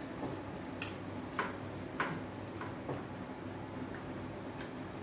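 Wet mouth noises of eating: soft, irregular lip-smacks and chewing clicks, about six in a few seconds, over a low steady hum.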